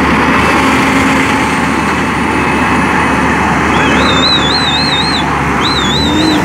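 Diesel engine of a semi-tractor running steadily at low revs as the tractor-trailer creeps around a tight bend. A high warbling whistle sounds twice near the end.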